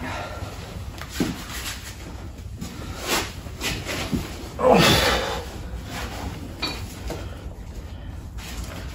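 Handling noises of a man getting ready to weld: scattered knocks and clicks, with one louder scraping knock about halfway through, over a steady low hum.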